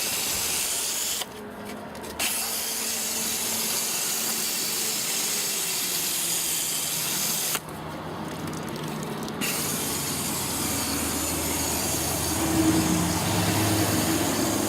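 Sprayer hissing steadily as foaming chemical cleaner is sprayed onto HVAC condenser coils. The spray stops twice, briefly about a second in and for about two seconds near the middle, then resumes.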